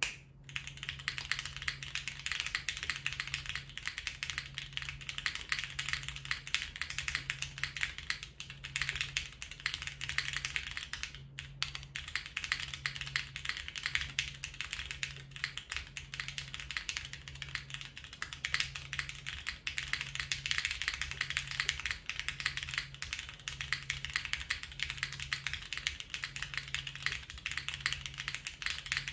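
Continuous fast typing on a custom tenkeyless mechanical keyboard. It has lubed and filmed linear Cherry MX Black switches with 55 g springs, GMK keycaps and no case foam. A brief pause comes about eleven seconds in.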